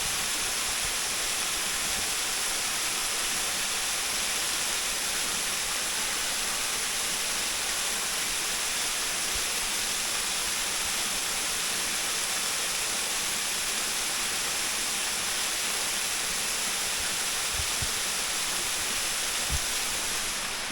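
Waterfall: a steady, even rush of falling water that holds unchanged throughout.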